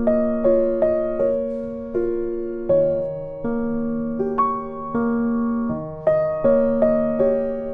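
Background music: a gentle keyboard piece played on piano, with notes and chords struck about every half second and left to fade.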